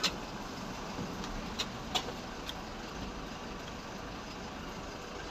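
Light truck driving slowly, its engine and road noise a steady hum, with three short clicks between about one and a half and two and a half seconds in.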